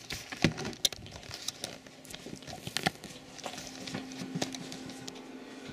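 Irregular knocks, clicks and rustles of someone getting up from an office chair and handling the camera as it is picked up and moved. A faint steady hum comes in about halfway through.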